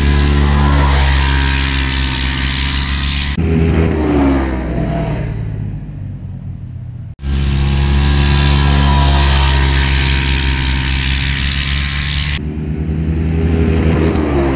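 Side-by-side UTV engines at full throttle in a grass drag race, each holding a steady pitch down the strip and then changing as the machines pass. The sound cuts off sharply about seven seconds in and starts again on a second run.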